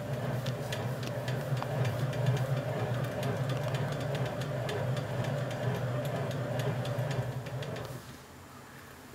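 Antique Bernina KL 117 zig-zag sewing machine running on its electric motor, worked by the foot pedal: a steady motor hum with rapid ticking from the mechanism. It runs for about eight seconds, then stops.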